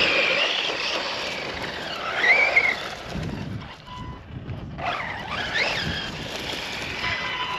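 Brushless electric motor of a radio-controlled Losi truck whining as it is driven, its pitch rising and falling with the throttle, with a clear rising whine about two seconds in and more rises and falls around five to six seconds.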